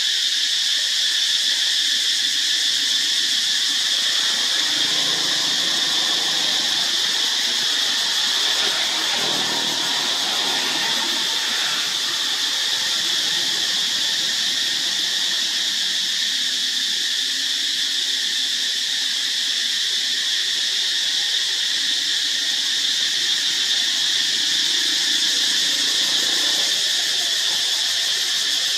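Insect chorus in a forest: a steady, high-pitched drone that does not let up.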